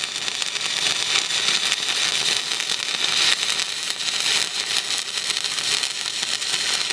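Stick (arc) welding on a steel hull: a 3.2 mm electrode burning steadily at a higher amperage, laying a fill pass between the doubler and the rubbing strip, with no break in the arc.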